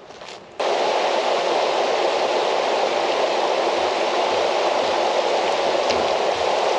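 A loud, steady rushing noise that cuts in suddenly just over half a second in and holds without change.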